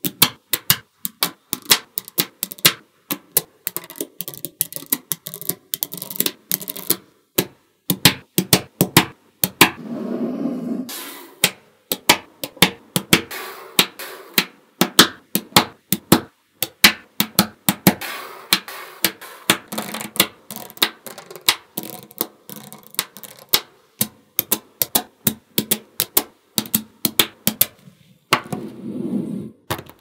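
Small magnetic balls clicking and snapping together as strips of them are pressed into place, many sharp irregular clicks a second. A longer rattle comes about ten seconds in and again near the end.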